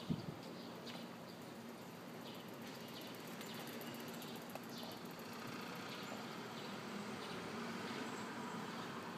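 Quiet city street ambience: a steady low background noise with scattered short high ticks, growing slightly louder in the second half. A single thump right at the start.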